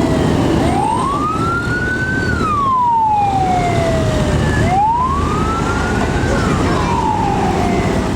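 Bus telolet horn sounding a siren-like wail: two slow sweeps that each rise and then fall away more slowly, over steady engine and road rumble.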